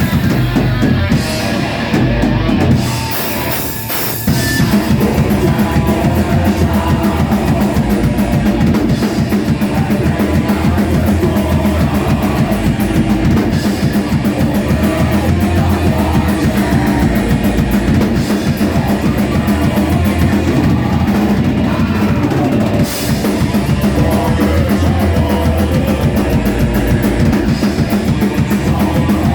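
Rock band playing live: drum kit and electric guitar in a heavy rock song. About four seconds in the band drops back briefly, then the full band comes back in and keeps a steady driving beat.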